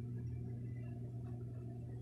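Steady low hum of room background noise, with a faint short click about a second in.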